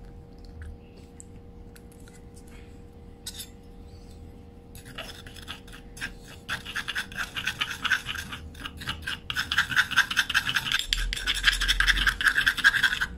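Metal spoon scraping and stirring against the inside of a marble mortar, mixing powder and liquid into a paste. A few faint clicks at first, then rapid, continuous scraping strokes from about five seconds in.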